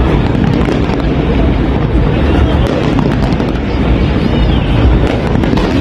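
Fireworks display in full barrage: many shells bursting in quick succession, a continuous deep rumble of booms with sharp crackling on top, and crowd voices mixed in.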